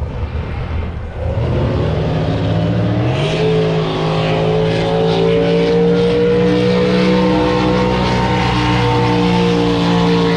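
Racing drag boat engine running up: its note climbs about a second in, jumps sharply higher about three seconds in, then holds a steady high pitch that rises and falls slightly.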